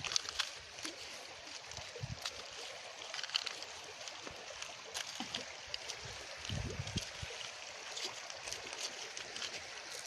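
River water running and gurgling through a small hand-dug side channel, a steady trickling rush dotted with small splashy ticks.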